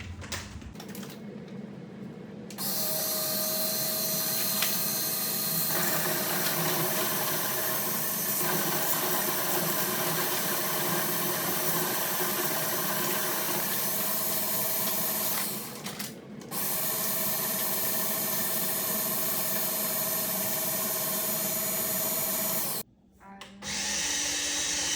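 OXO Brew electric coffee grinder grinding coffee beans fine. The motor runs steadily with a dense grinding rattle, drops out for a moment about two-thirds of the way in, runs on, then stops near the end before one short final burst.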